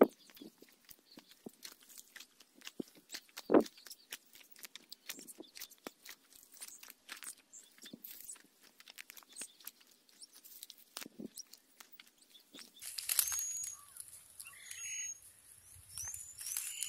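Crackling and crunching as a hardened white paste seal is broken off a watermelon by hand, with one louder knock about three and a half seconds in. Near the end a steady outdoor hiss rises, with a few short high bird chirps.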